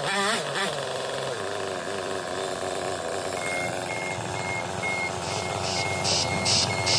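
A chainsaw's two-stroke engine drops from a rev to idle about half a second in and then idles steadily. From about halfway in, a short electronic beep repeats about twice a second over it.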